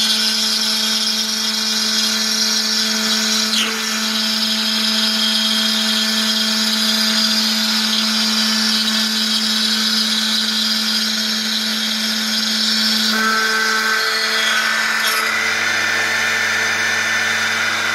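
CNC router spindle milling a marble lattice panel under water-jet cooling: a steady hum under a dense hissing cutting noise. The tone shifts briefly about four seconds in and again around thirteen seconds, as the cut changes.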